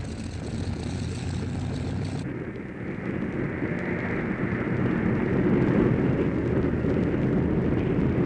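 Douglas DC-6 airliner's four radial piston engines and propellers droning as the plane passes low. A quieter low hum gives way suddenly about two seconds in to the aircraft noise, which grows louder over the next few seconds and then holds.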